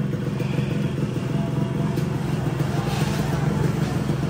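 Yamaha RX-King 135cc single-cylinder two-stroke engine running steadily at low revs through its original full-set exhaust with a custom 'ngorok' baffle, jetted with a standard main jet, so the growl is mild.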